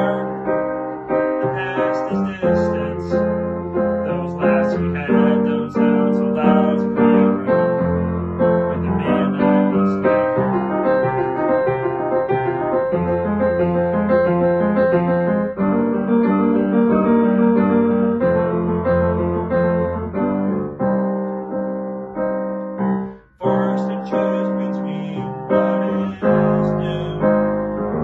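Piano playing a song's accompaniment, chords struck in a steady rhythm, with a brief gap a few seconds before the end.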